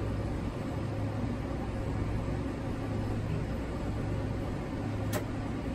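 A single sharp click about five seconds in, over a steady low hum. The click is the starter solenoid of a Detroit Diesel 6-71 engaging without the engine turning over, a sign of a starter fault.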